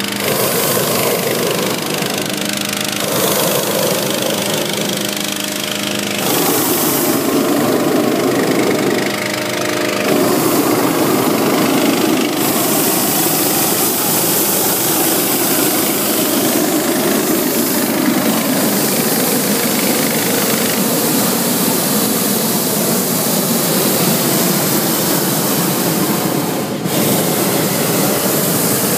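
Hot-air balloon inflator fan driven by a small gasoline engine, running steadily at speed and blowing air into the balloon envelope during cold inflation.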